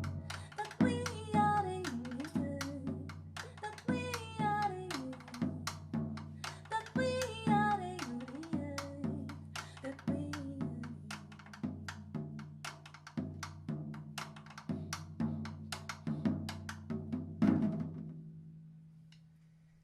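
Live Brazilian jazz band playing a chacarera: a wordless female vocal line over bass, piano and drum kit, with regular drum strokes. Near the end the band lands on a final hit and a low note rings out and fades.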